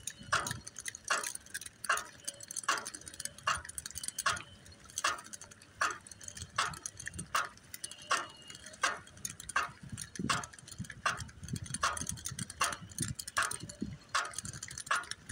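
A dog trotting on pavement, each stride making a sharp click, evenly about two to three times a second, with a low road rumble under it.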